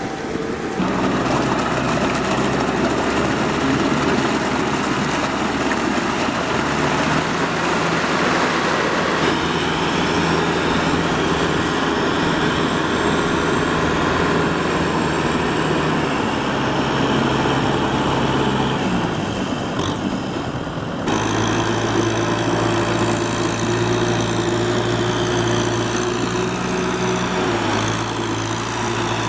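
Kubota M6040SU tractor's four-cylinder diesel engine running under load as it works through deep mud. The engine note is steady but changes abruptly twice, about a third of the way in and again past the middle.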